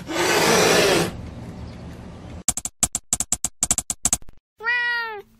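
A cat hissing loudly for about a second, then fading. A quick run of about a dozen sharp clicks follows, and near the end a single short meow-like call from the channel's logo sting.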